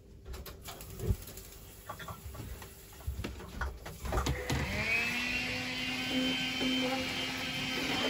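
Dishes knocking and clinking in a sink, then about four seconds in a vacuum cleaner switches on, its motor whine rising in pitch and settling into steady running.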